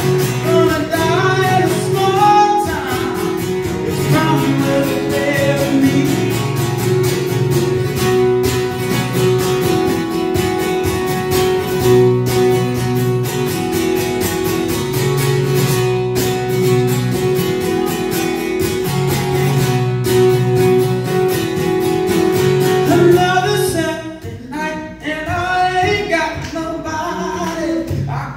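A man singing live with his own strummed steel-string acoustic guitar, amplified through a PA. After the opening lines the guitar carries a long instrumental stretch in an even strumming rhythm. Near the end the playing drops softer and the singing comes back.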